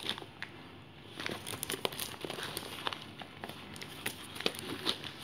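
Plastic courier mailer bag crinkling as it is handled and turned over: a run of small, irregular crackles.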